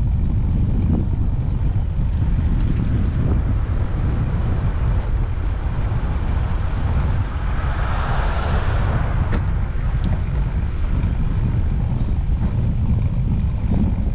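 Wind buffeting the microphone of a camera on a moving bicycle, a steady low rumble. About eight seconds in, a hiss swells and fades, with one sharp click just after.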